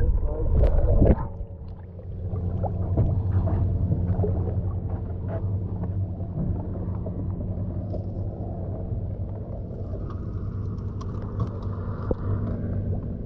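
Boat engine running steadily with a low hum, after a loud low rumble in the first second.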